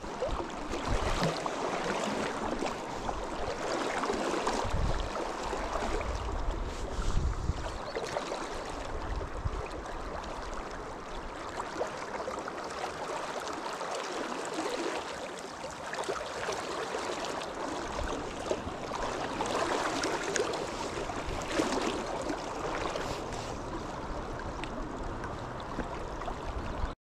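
Water of a shallow, rocky river running and swirling, a steady rushing noise that swells and eases. Low rumbles come in over the first several seconds.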